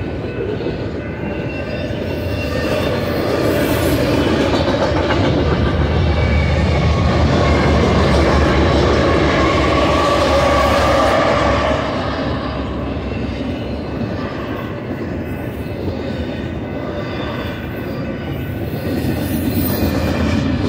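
Double-stack intermodal freight train passing close by, its steel wheels running on the rails under container well cars. Near the middle, four mid-train diesel locomotives (BNSF ES44C4s, an NS ES44AC and an NS AC44C6M) go past and add a deep engine rumble that makes it loudest, then it eases back to wheel noise.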